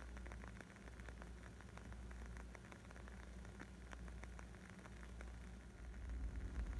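Wood fire crackling: many small, sharp pops and snaps in quick irregular succession over a low rumble, which grows louder near the end.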